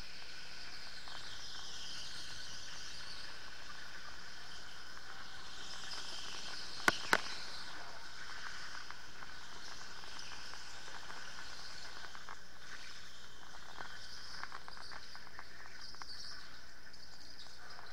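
Electric go-kart running at speed: a steady high-pitched motor whine with tyre and track noise. About seven seconds in, two sharp knocks a fraction of a second apart are the loudest sounds.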